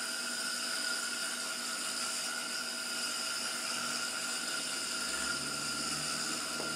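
Trompos Cometa King Turbo ball-bearing spinning top spinning on a palm: a steady whirring hum with constant high-pitched tones. A low rumble joins about five seconds in.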